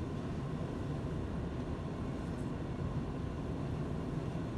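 Steady low rumble of a cruise ship's machinery and ventilation.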